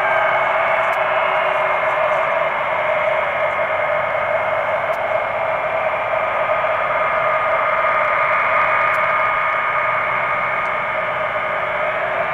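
Boeing 707's four jet engines running with a loud, steady rush of jet noise and a high whine on top, holding at power without climbing in pitch.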